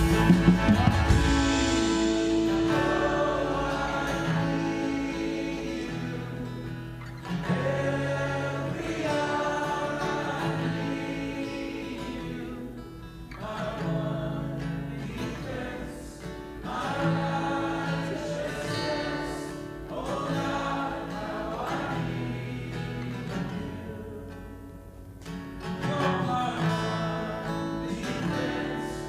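Worship music: a congregation or worship team singing with acoustic guitar accompaniment.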